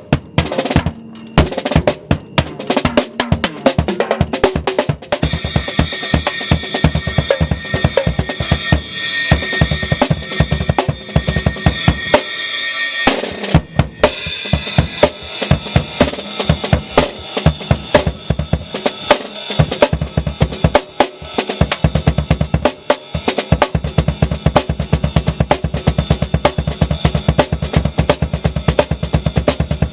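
Acoustic drum kit played hard and fast: rapid bass drum and snare strokes, with a long ringing cymbal wash from about five seconds in. A brief break near the middle, then a fast, even groove.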